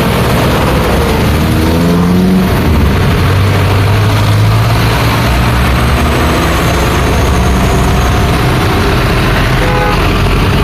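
Busy road traffic: a steady rumble of passing vehicles and engines, with one engine pulling away and rising in pitch about two seconds in.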